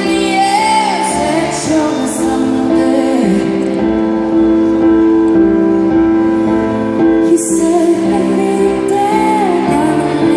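Live concert music: a female singer sings a slow, gliding melody over long held keyboard chords, heard through the arena's PA.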